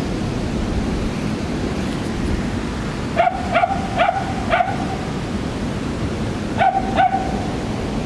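Dog yipping in short, high calls: four quick yips about three to four and a half seconds in, then two more near the end.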